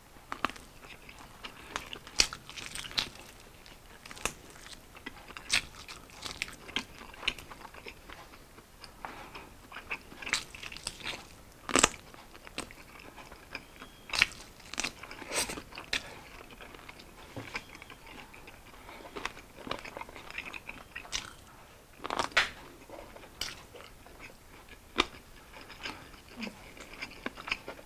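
A person biting and chewing fried, sauce-coated chicken wings: irregular sharp clicks and wet smacks of mouth and teeth on meat and skin, every second or so.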